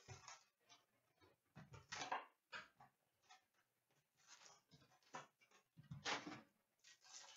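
Hands opening a box of hockey cards and taking out the wrapped packs: irregular bursts of rustling and crinkling wrapper and packs, with cardboard handling, about five of them a second or two apart.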